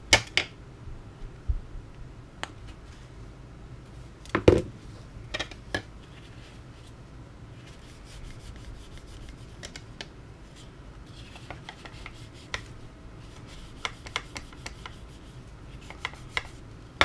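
Irregular handling noises from small parts being worked on by hand: scattered clicks and taps with some rubbing. The loudest knocks come right at the start and about four and a half seconds in.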